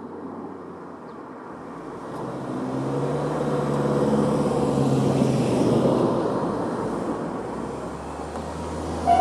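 A road vehicle passing the level crossing, its engine and tyre noise swelling to a peak midway and fading away. Right at the end the crossing's electronic warning alarm starts ringing.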